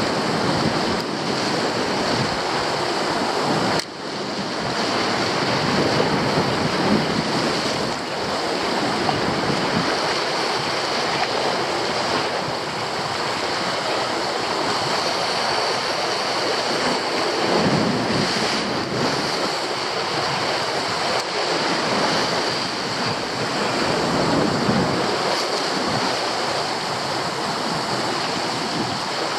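Sea waves breaking and washing over shoreline rocks, swelling in several surges, with wind buffeting the microphone.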